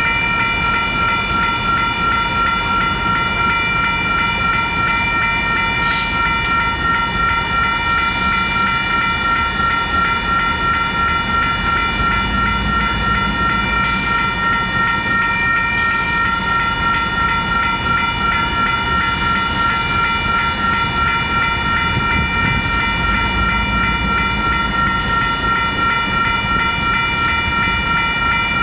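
Union Pacific train rolling past with a steady low rumble and a few sharp clanks, under a constant high-pitched ringing made of several tones.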